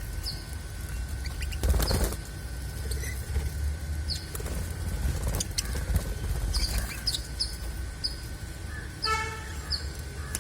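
Budgies flapping their wings while bathing in a shallow water bowl, with a louder flurry about two seconds in, among many short, high chirps.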